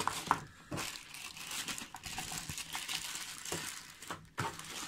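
Clear plastic packaging bag crinkling and rustling as it is handled, with a sharp crackle about a third of a second in.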